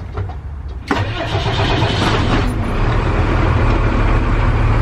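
Step van's engine starting, heard from inside the cab: it catches about a second in and settles into a steady idle.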